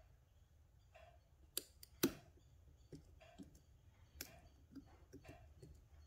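Faint metallic clicks and ticks of a pick and tension wrench working the pins inside an Assa 700 lock cylinder, with two sharper clicks about one and a half and two seconds in and another about four seconds in.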